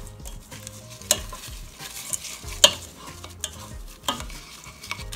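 Wooden spoon stirring riced cauliflower and mixed vegetables frying in oil in a stainless steel pot, over a steady sizzle. The spoon knocks sharply against the pot about five times.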